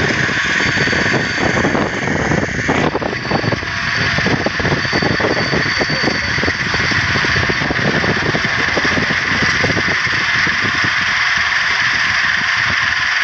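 Maize combine harvester running at full working speed, a loud steady mechanical din. Ears of corn rattle and knock as they tumble from its raised hopper into a trailer.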